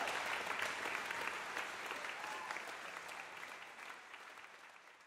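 Audience applauding, the clapping fading away steadily to silence.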